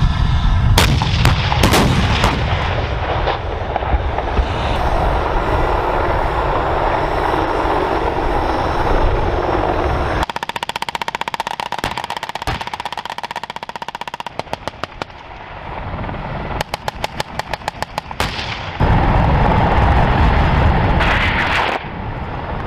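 Live-fire gunfire from U.S. Army M1 Abrams tanks: a few heavy shots over a deep rumble in the first couple of seconds, then, from about halfway, long bursts of rapid machine-gun fire. A loud low rumble takes over near the end.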